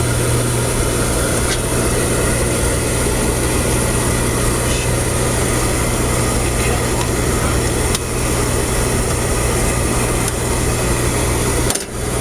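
Beckett oil burner's motor and fuel pump running with a steady hum while the pump is being bled of air, the fuel oil now flowing without bubbles. The sound dips briefly just before the end.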